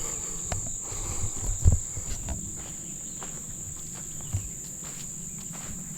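Insects droning steadily on one high pitch, with a few low thumps of footsteps, the strongest one about two seconds in.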